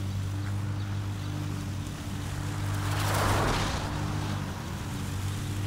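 Lawn mower engine running at a steady speed, with a rush of noise that swells and fades a little past halfway.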